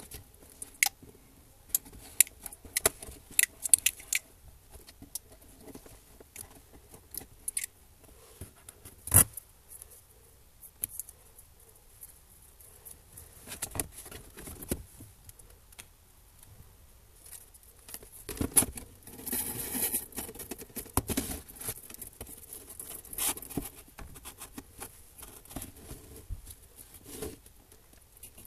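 Scattered sharp clicks and taps of a laptop's heatsink and cooling-fan assembly being handled and worked loose from the motherboard, with a longer scraping, rustling stretch about two-thirds of the way through as it is pulled free.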